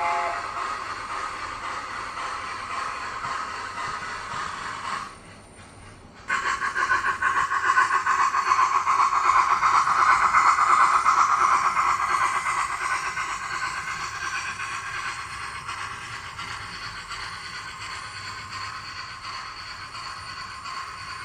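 Sound-fitted OO gauge model of an A4 steam locomotive running, its sound unit playing steam and running noise, with the model's wheels on the track. The sound dips briefly about five seconds in, comes back louder, then slowly fades away.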